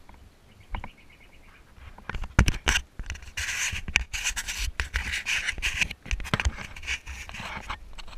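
A hand scraping and rubbing against a head-mounted action camera as it is handled, with scratchy rubbing and sharp knocks on the microphone starting about two seconds in and lasting until near the end.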